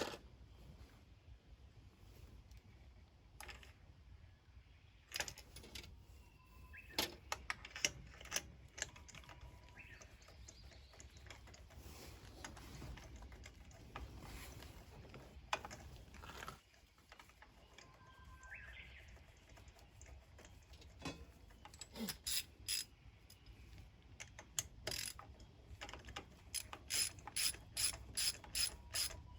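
Ratchet wrench clicking as spark plugs are worked in or out of a kei van engine, with scattered tool knocks and clinks, and a quick run of ratchet clicks, about four a second, near the end.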